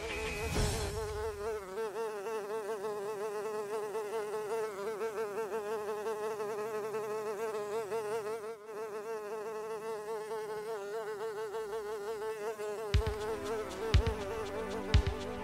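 A steady buzzing tone with a fast, even wobble in pitch, like an insect's buzz. About thirteen seconds in, sharp knocks of a beat start under it.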